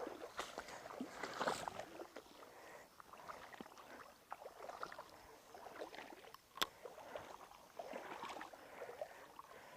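Faint, irregular water splashing and sloshing with scattered small clicks and knocks, and one sharp click about two-thirds of the way through.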